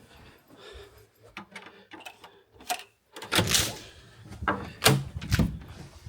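Irregular knocks, clicks and rustling handling noises of a door being opened and closed, with the loudest rustle about three and a half seconds in.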